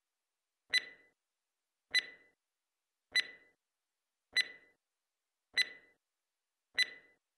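Six sharp ticks, one about every 1.2 seconds, each with a brief high ringing note, and dead digital silence between them. It is a clock- or metronome-like tick added in editing, standing in for the lathe sound that was never recorded.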